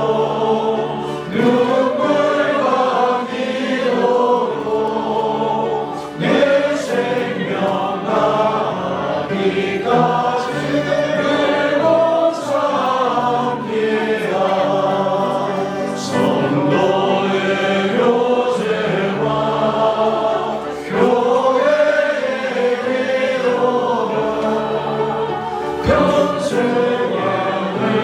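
Church congregation singing a hymn together over steady instrumental accompaniment.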